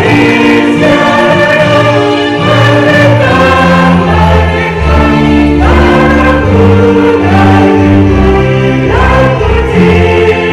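Choir singing a slow, hymn-like song with musical accompaniment, in long held notes.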